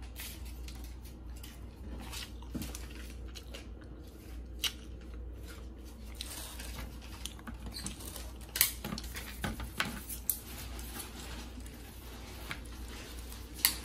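Eating and handling noises: scattered soft clicks and crinkles from a plastic clamshell takeout box and chopsticks, with quiet crunching of crispy fried squid. There are several sharper clicks in the second half, all over a low steady hum.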